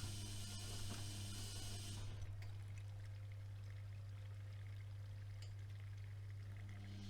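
AEG Öko-Lavamat 76730 washing machine in its wash phase: the drum turns with water sloshing inside, stops about two seconds in, and starts turning again near the end, over a steady low hum.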